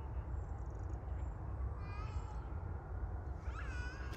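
Animal cries: a short call about two seconds in, then a longer drawn-out cry near the end that rises and then holds, over a steady low rumble.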